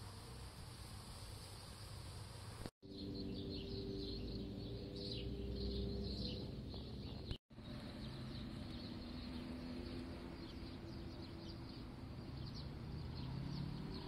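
Faint outdoor ambience of small birds chirping in quick, high, scattered calls over a low steady hum. The sound drops out briefly twice.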